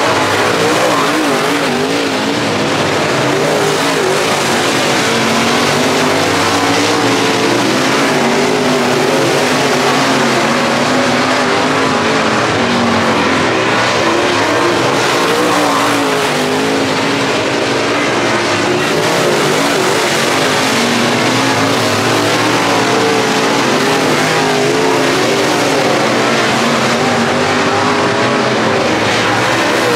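Field of dirt late model race cars running racing laps: several V8 engines at once, their pitches rising and falling and overlapping as the cars go around the track.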